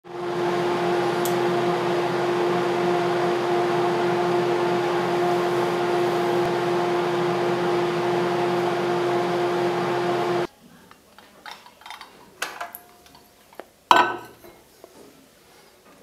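Microwave oven running with a steady hum, stopping abruptly about ten seconds in. A few clicks and knocks follow, with one sharp loud click near the end as the oven door is opened.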